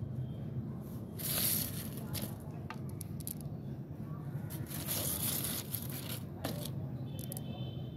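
A hand scraping and brushing through fibrous potting soil in a pot, with small pebbles clicking as they are set down. There are two longer rustling scrapes, about a second in and about five seconds in, with short clicks between them.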